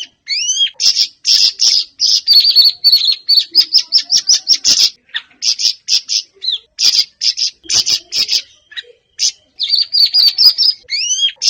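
Siri-siri bird singing hard and continuously: a rapid, chattering run of sharp chirps, with a few rising whistled notes just after the start and again near the end.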